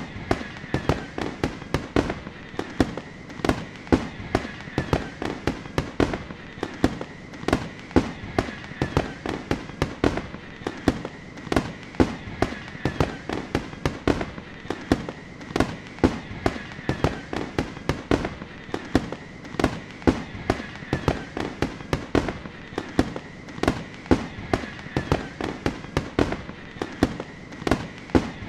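Fireworks going off in a steady barrage of sharp bangs and crackling pops, two or three loud ones a second, with a faint steady high tone underneath.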